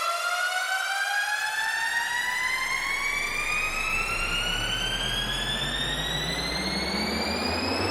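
Electronic synth riser: a buzzy tone with many overtones climbing slowly and steadily in pitch. A deep bass rumble comes in about a second in, and a second low tone starts to climb near the end.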